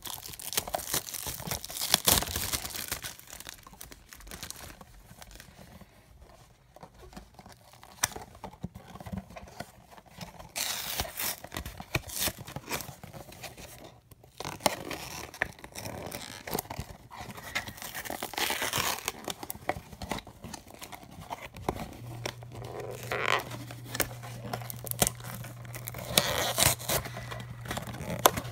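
Plastic wrapping and paper of a toy blind box crinkling and tearing under the fingers, in irregular bursts of rustling and sharp crackles as the packaging is pulled open by hand.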